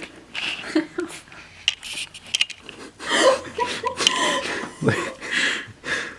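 People laughing, starting about halfway through, after a few short clicks.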